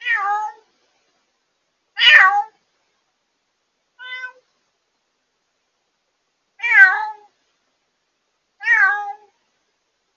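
A cat meowing loudly, five calls about every two seconds, each falling in pitch; the third is shorter and fainter. It is the night crying of a newly rescued former stray confined to a cage, which the owner reads as anger.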